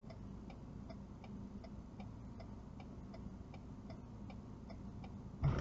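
Car turn-signal relay clicking steadily, about two or three clicks a second, over a low engine idle hum while the car sits stopped. A sudden loud thump comes near the end.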